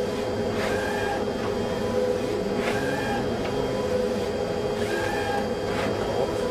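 HP large-format plotter printing on roll paper: a steady mechanical hum, with a short whir from the print carriage's pass about every two seconds.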